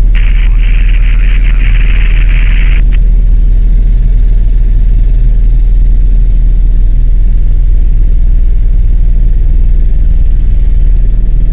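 Helicopter in flight, heard from inside the cabin: a steady, loud drone of engine and rotors. A higher hiss lies over it for about the first three seconds, then cuts off sharply.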